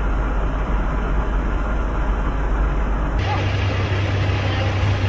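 Steady engine noise of idling diesel trucks at a truck-stop fuel island. About three seconds in it changes abruptly: the deepest rumble gives way to a slightly higher hum.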